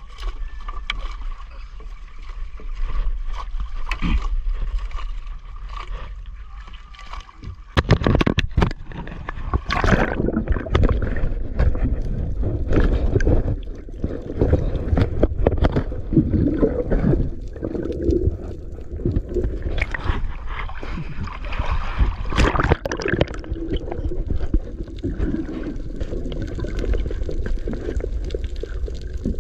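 Water sloshing and splashing around a small fishing boat at sea, fairly quiet with a faint steady tone for the first several seconds, then louder and choppier from about eight seconds in.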